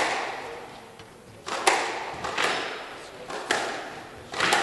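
Squash rally: the rubber ball struck by rackets and smacking off the court walls, about five sharp cracks roughly a second apart, each echoing briefly in the glass-walled court.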